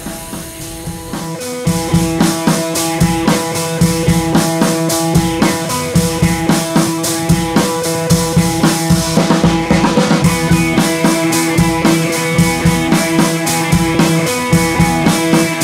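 Background music with a steady drum beat over held tones; the beat comes in louder about two seconds in.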